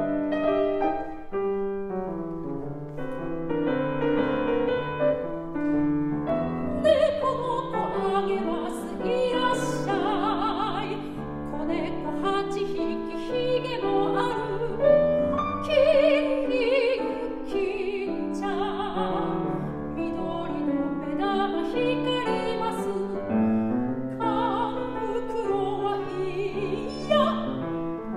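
Classical art song: a grand piano plays the introduction, and a soprano voice with wide vibrato comes in about seven seconds in, singing over the piano accompaniment.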